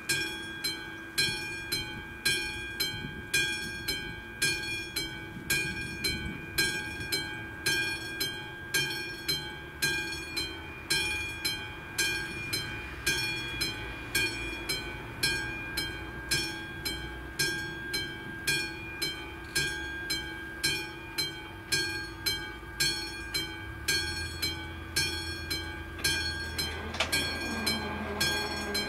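Level crossing warning bell ringing steadily, about two strikes a second, while the red lights flash. Near the end, the barrier booms' drive motor starts with a rising whine as the barriers lower.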